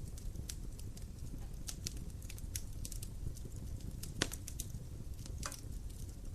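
Wood fire in a fireplace crackling: irregular sharp snaps and pops over a steady low rumble of the burning flames, with one louder pop about four seconds in.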